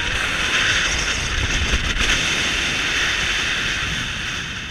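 Rushing wind buffeting the camera microphone as a tall chain swing ride sweeps riders through the air. It swells in, holds loud, and fades near the end.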